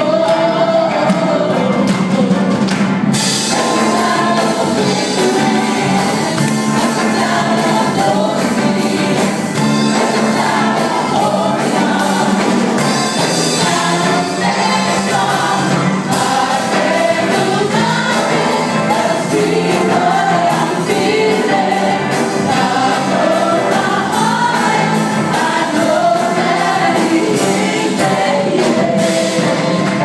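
Live gospel worship song: a group of singers, mostly women, singing together through microphones, backed by a live band with guitar and keyboard, amplified over a PA.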